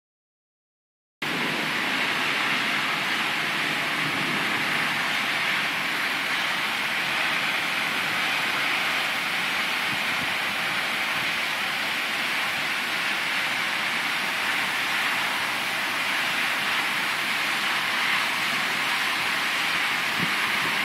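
Heavy thunderstorm downpour: a steady, even hiss of rain that starts about a second in.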